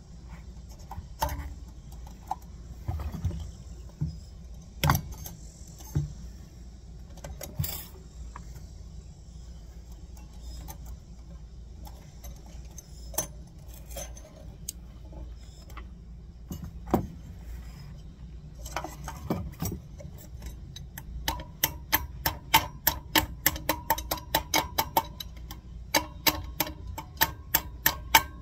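A hammer tapping on the steel bearing in a wheel hub, metal on metal. There are a few scattered clinks and knocks at first, then, about two-thirds of the way in, a steady run of ringing strikes about two a second.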